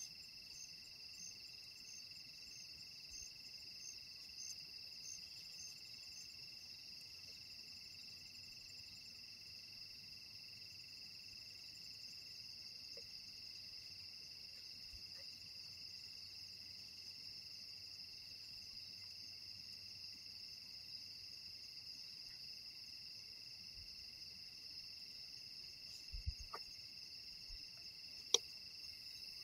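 Night insects calling in a steady, high-pitched drone, with one chirp repeating just under twice a second over the first few seconds. A dull thump comes about 26 seconds in, and a single sharp click near the end.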